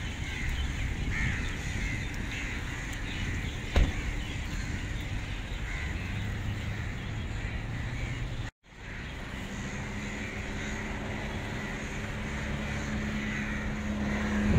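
A large flock of crows cawing together, many calls overlapping, over a steady low rumble. There is a single sharp knock a few seconds in. The sound drops out for an instant just past halfway, and a steady low hum comes in under the calls after it.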